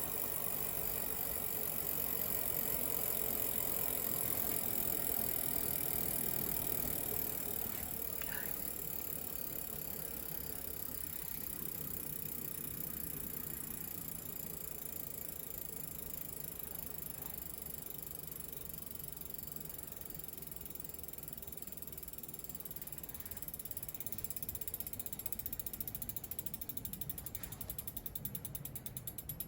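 Shimano HB-MT200B rear hub freewheeling as the bicycle's rear wheel is spun and left to coast: the freehub pawls click in a fast, continuous run. Near the end the ticks become separately audible.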